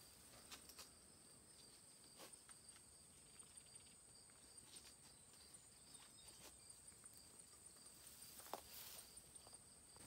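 Near silence: a faint, steady, high-pitched insect trill, with a few faint clicks and rustles.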